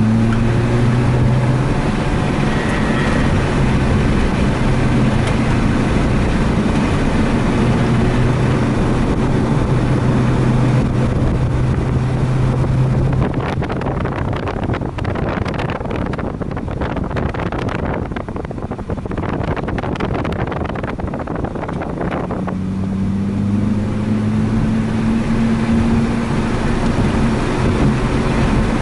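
Mazda RX-8's twin-rotor rotary engine running hard on track, with heavy wind buffeting on the microphone. About halfway through, the engine note drops away for roughly nine seconds, leaving mostly wind noise. It then comes back and climbs steadily as the car accelerates.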